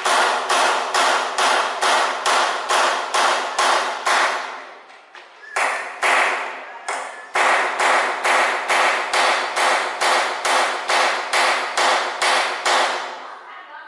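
Hammer striking in quick, even blows, about three a second, in two long runs with a pause of a few seconds in the middle.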